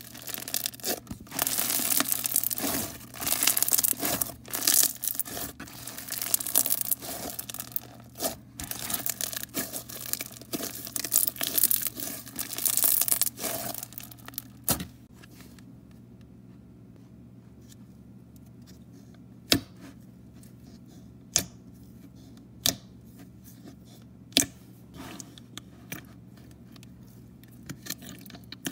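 Bead-filled crunchy slime being stretched and squeezed by hand, a dense crackling and crinkling with loud peaks. About halfway through it goes quiet, and a handful of single sharp pops follow, spread a second or two apart.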